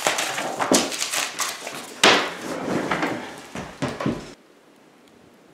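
Sheets of paper and a paper folder being rustled and shuffled together on a wooden desk, with a few knocks and clicks, the loudest about two seconds in. The sound cuts off abruptly about four seconds in.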